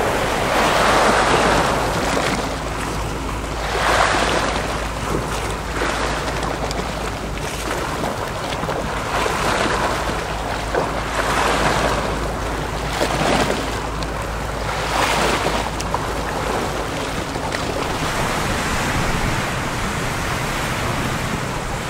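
Small waves breaking and washing along the shore, swelling in a fresh surge every couple of seconds, over a steady low wind rumble on the microphone that drops away near the end.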